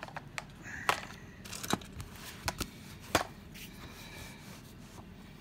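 Plastic toys being handled, with four sharp clicks and knocks spread over the first few seconds.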